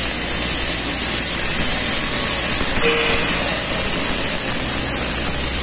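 MIG (GMAW) welding arc sizzling steadily as it lays a bead on a rotating pipe joint, with a low steady hum underneath.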